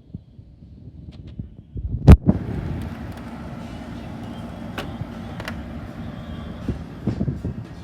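Window air conditioner coming on: a loud thump about two seconds in, then the unit running with a steady hum and rush of air, with a few clicks.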